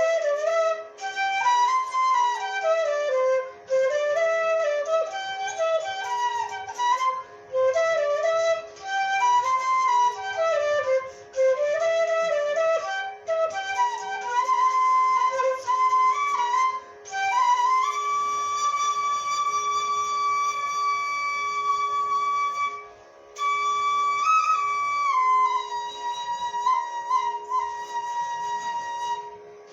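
Instrumental melody in raag Hamsadhwani in a flute-like tone over a steady drone note. It runs in quick phrases stepping up and down, then holds long notes in the second half, with short pauses between phrases.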